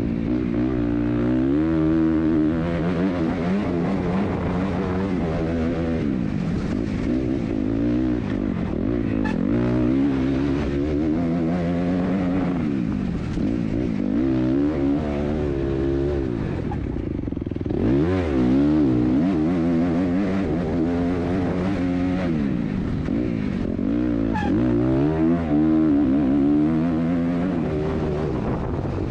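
Dirt bike engine heard from on the bike, revving up and down over and over as the rider accelerates, shifts and rolls off along the track, with a short lull off the throttle a little past halfway.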